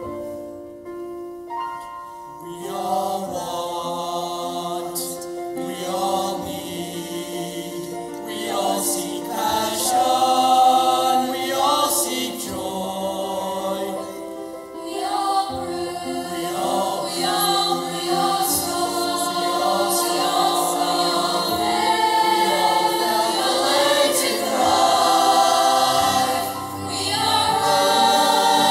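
High school mixed choir singing in parts, over a held low note, with sharp s sounds in the words; the singing is softer at first and the full choir swells in about two and a half seconds in.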